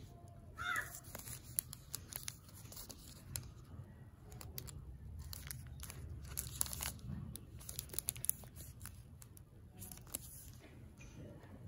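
Plastic chocolate bar wrapper crinkling and crackling in the hands as it is held and turned over, a scatter of sharp crackles.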